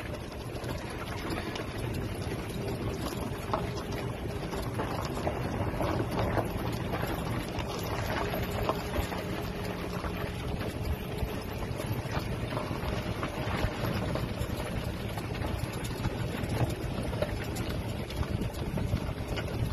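Wind buffeting a phone's microphone as a steady rumbling rush, with a faint steady hum in the middle part.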